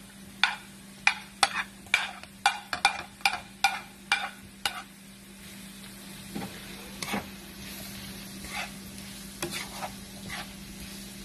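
Spatula clicking and scraping as diced hot dog is pushed off a plate into a nonstick wok, a quick run of clicks over the first five seconds. Then the spatula stirs the mix over a steady sizzle of meat and vegetables frying.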